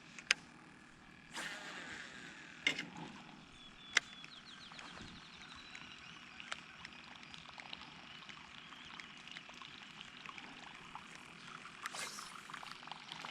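Faint outdoor quiet with a few sharp clicks and knocks scattered through, two brief swells of noise, and a quick run of high ticks about four seconds in.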